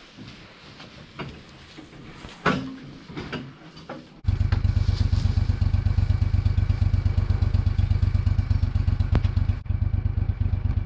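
Faint rustling and a few light knocks at first, then, from about four seconds in, a Cub Cadet utility vehicle's engine idling steadily with a fast, even low pulse.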